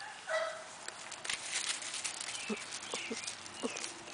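Golden retriever puppies scrabbling in the netting of a soccer goal, with a short whine just after the start and a few brief yips in the second half.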